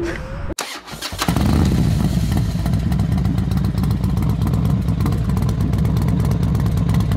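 Harley-Davidson Road King Special's V-twin engine running loud and steady, coming in about a second in.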